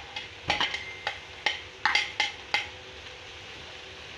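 A metal slotted spatula clinks and knocks against a steel karahi and a serving bowl as chopped spring onions are scraped into the pan of vegetables. There are about seven short, ringing knocks in the first two and a half seconds, then it goes quiet.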